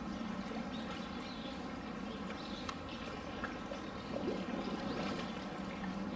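Steady running water, with a few faint high chirps scattered through it.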